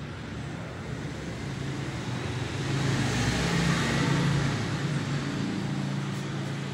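Road traffic noise with a steady low engine hum, as one vehicle passes louder, swelling and fading about halfway through.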